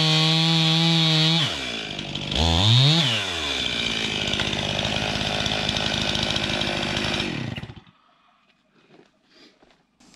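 Gasoline chainsaw at full throttle, released about a second and a half in, revved once more briefly, then idling until it is switched off about three-quarters of the way through; faint clicks follow.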